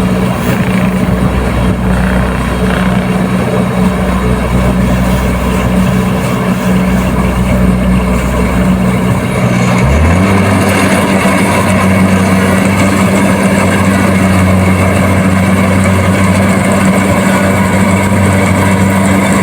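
Kubota DC-70 combine harvester's diesel engine running steadily. About halfway through, its note shifts abruptly and then holds steady again.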